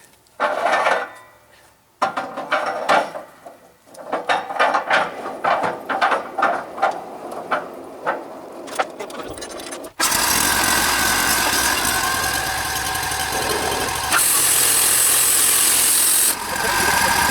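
Wooden boards knocking and clattering as they are handled and stood on end, a string of irregular knocks. About ten seconds in it switches abruptly to a Wood-Mizer portable band sawmill running loudly and steadily, with a sharp high hiss laid over it for about two seconds near the end.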